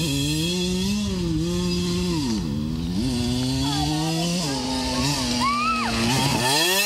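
Small dirt bike engine revving, its pitch rising and falling several times as the throttle is worked, with a sharp drop shortly before the end and a pick-up again.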